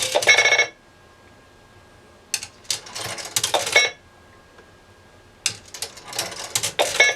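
Coins dropping into a payphone's coin slot and rattling through the coin mechanism, three deposits in a row: one right at the start, one about two and a half seconds in and one about five and a half seconds in. Each drop has clicking and steady tones mixed in, as the phone answers a request for 35 cents.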